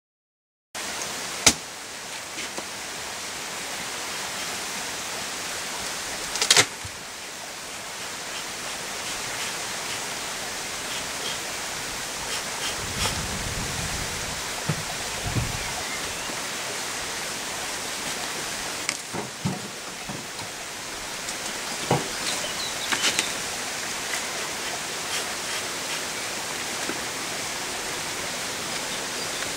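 Steady hiss with no clear pitch, broken by several sharp knocks and clicks from handling a beehive as it is opened and smoked, and a low rumble about halfway through.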